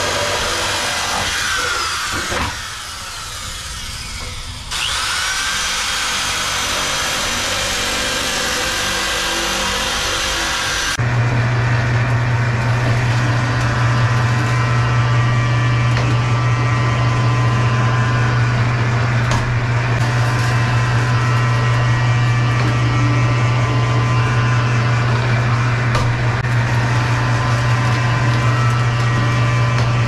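Handheld electric sheet-metal shear cutting galvanized steel sheet, easing off briefly between about two and five seconds in. About eleven seconds in it gives way to the steady hum of a motor-driven sheet-metal forming machine running as a galvanized sheet is fed into it.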